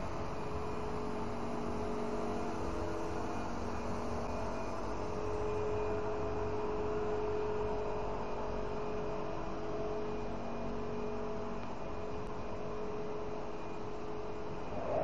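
PVC profile extrusion line running: a steady machinery hum with several held tones over a continuous noise bed.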